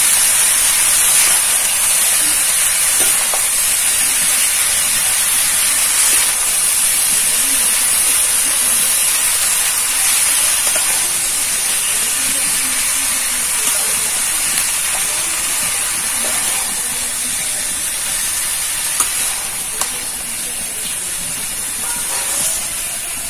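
Shredded ash gourd frying in hot oil and spice paste in a metal pan: a steady sizzling hiss that slowly dies down, while a metal spatula stirs it, with a couple of light spatula taps near the end.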